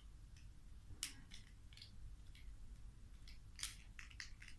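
Small, sharp clicks and snaps from a tape measure's parts being handled by hand during repair. There are two louder clicks about two and a half seconds apart, with fainter ticks between.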